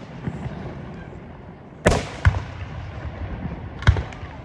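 Aerial firework shells bursting overhead: a loud boom about two seconds in, a smaller one just after it, and another loud boom near the end, each trailing off in an echoing rumble.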